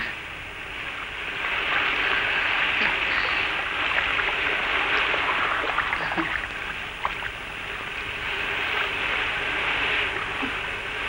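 Sea surf washing onto the shore, a steady rush that swells about two seconds in and again near the end.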